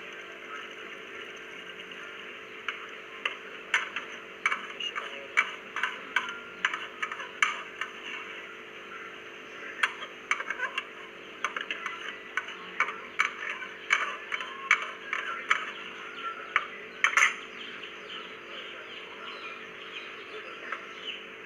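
Spatula clinking and scraping against a pressure cooker pot while the potatoes are stirred: irregular sharp clinks, about two a second, that stop near the end, over a steady hum and hiss.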